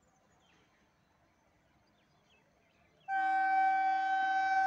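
WAP-4 electric locomotive's horn giving one long, steady, many-toned blast that starts abruptly about three seconds in, after near quiet. It is the warning of an express approaching to run through the station without stopping.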